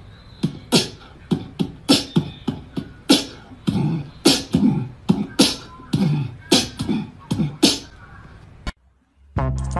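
Beatbox-like sharp clicks and pops in a rapid, irregular run, some mixed with short vocal sounds. They stop suddenly near the end, and music starts about half a second later.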